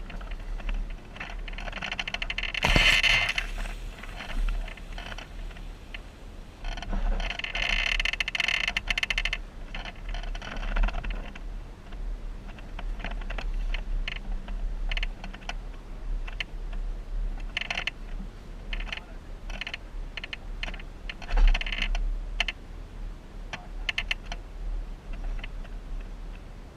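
Jeep driving on a rough off-road trail: irregular rattling and clicking of loose parts over a steady low rumble, with louder clatters about 3, 8 and 21 seconds in.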